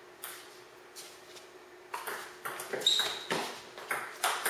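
Table tennis rally: the ball clicking off the paddles and bouncing on the table in quick hits about half a second apart, starting about two seconds in after a single click near the start. A short high squeak comes about three seconds in.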